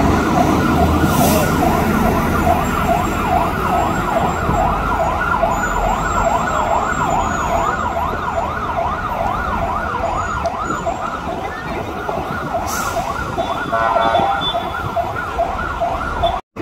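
Emergency vehicle siren sounding a fast yelp, its pitch sweeping up and down a few times a second, over the low rumble of traffic and idling engines. The pattern changes briefly near the end.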